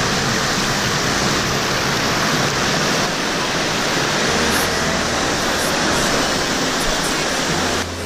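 Stream water rushing over rocks close to the microphone, a loud steady rush that cuts off suddenly near the end. Faint background music runs underneath.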